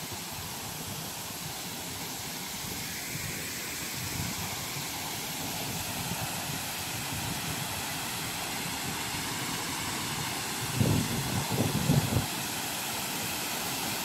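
Steady rushing of water from a man-made waterfall spilling down terraces of stacked rock into a pool. A couple of brief low bumps come a little before the end.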